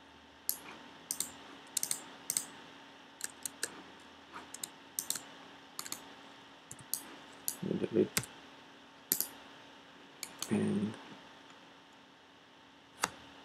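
Computer keyboard keystrokes and mouse clicks, short sharp clicks coming irregularly in small clusters while the software is being operated.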